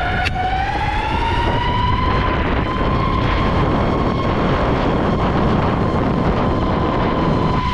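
Ecomobl M24 Pro electric skateboard's motors whining, rising in pitch over the first two seconds as the board speeds up, then holding a steady high whine. Underneath is a continuous low rumble of wind and wheels on asphalt.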